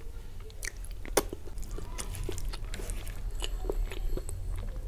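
Close-miked chewing of soft, sauce-soaked food, with wet mouth clicks and smacks scattered throughout; the sharpest click comes about a second in.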